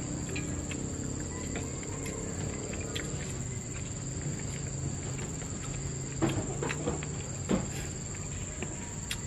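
Steady high-pitched insect trilling, with a few short clicks and smacks of eating by hand from a plate between about six and seven and a half seconds in.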